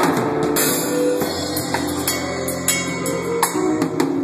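Sonor drum kit played with sticks: a run of quick drum and cymbal hits, with steady ringing tones underneath.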